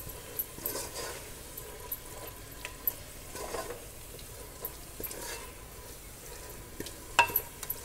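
Wooden spatula stirring and scraping a thick onion-yogurt masala in a pressure cooker, with light knocks of the spatula against the pot and a faint sizzle from the low heat.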